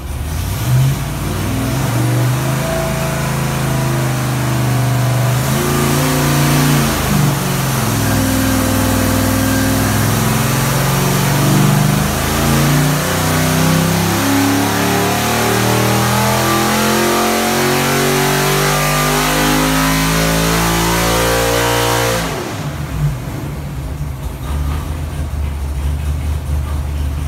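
408 cubic-inch LS stroker V8 on an engine dyno, breathing through a stock LS3 intake manifold, making a wide-open-throttle dyno pull. The engine note rises steadily in pitch for about fifteen seconds, then cuts off sharply a few seconds before the end and drops back to a low idle.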